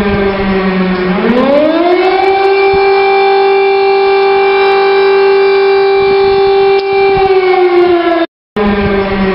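Civil defense warning siren wailing. It starts on a low tone, rises to a higher pitch about a second in and holds it steadily for several seconds, then falls back down. The sound cuts out for a moment near the end.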